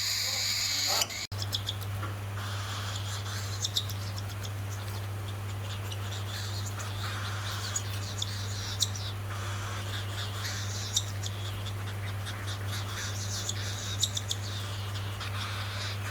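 Hungry hand-fed cockatiel begging for food: many short, high, squeaky chirps repeating irregularly from about a second in, over a steady low electrical hum.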